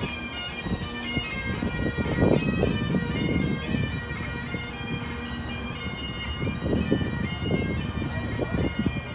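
Bagpipes playing: a melody over steady drones. A few low rumbles come through around two seconds and seven seconds in.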